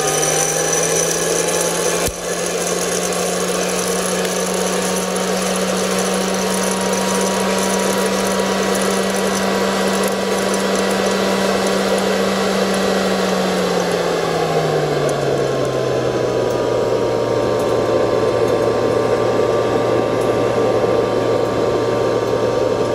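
Aillio Bullet R1 V2 coffee roaster's motors and fan running as freshly roasted beans cool in its perforated, stirred cooling tray: a steady mechanical whine that drops in pitch about two-thirds of the way through.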